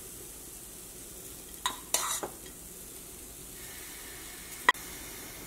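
Metal spoon scraping cooked beetroot thoran out of a stainless steel pan to serve it. A few short scrapes and clinks come around two seconds in and once near the end, over a faint steady sizzle.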